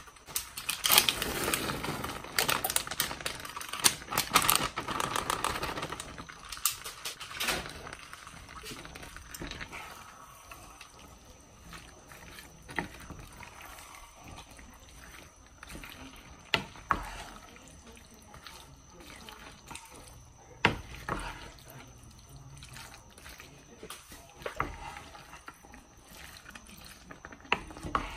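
A wooden spoon stirring frozen mixed vegetables into a thick, creamy chicken mixture in a square nonstick pan, giving wet squelching and the occasional knock of the spoon against the pan. It is loudest and busiest over the first several seconds, then quieter, with a few single knocks.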